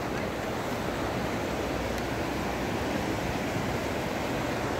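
Steady rush of the Mzymta, a shallow mountain river, running fast over its stony bed.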